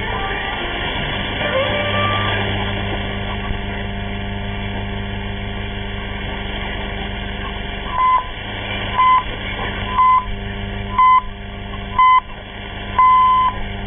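Voice of Turkey's AM shortwave signal on 6050 kHz received over an SDR: a steady hiss and hum of the open carrier, then from about eight seconds in six time-signal pips one second apart, five short and the last one longer, marking the start of the 1930 UTC English transmission.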